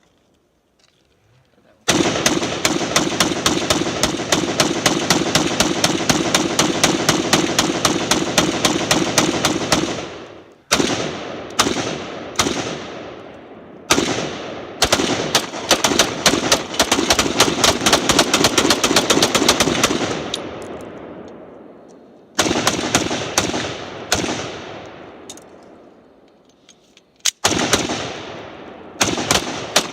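Guns firing in fast strings of shots, several a second. The first string starts about two seconds in and runs for about eight seconds. A few single spaced shots follow, then another long string and shorter strings near the end.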